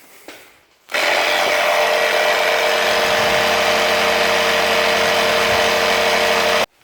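Small piston air compressor built into a MotoMaster Eliminator battery booster pack starts about a second in and runs steadily and really loud with a strong buzzing hum, pumping up an underinflated car tire. It stops abruptly near the end.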